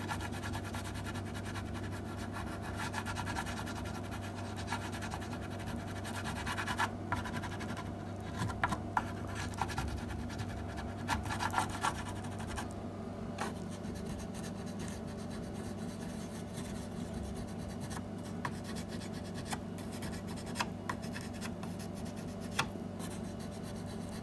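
A wax touch-up crayon is rubbed over a TV cabinet's covering in short, irregular scratchy strokes, over a steady low hum.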